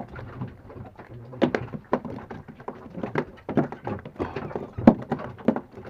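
A string of light, irregular taps and knocks: handling noise as small fish are unhooked by hand from a multi-hook bait rig against a boat's side.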